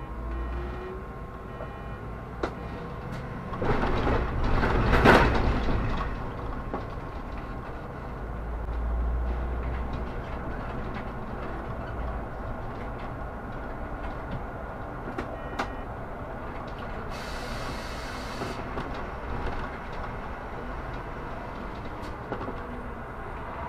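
Solaris Urbino 18 articulated city bus under way, heard from inside: a steady low engine and road rumble. A louder, noisier stretch comes about four to six seconds in, and a hiss lasting over a second comes about two-thirds of the way through.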